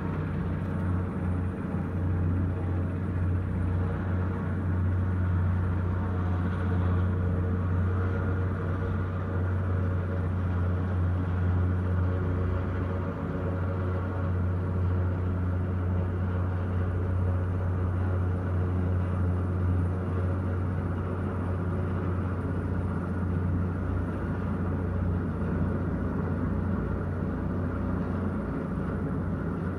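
Helicopter hovering close by: its engine and rotors make a steady low rumble, heard through the glass of a high-rise window.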